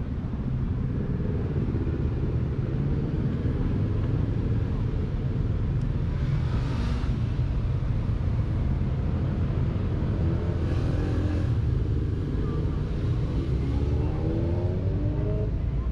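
Steady low engine rumble, with a motor rising in pitch near the end as it speeds up.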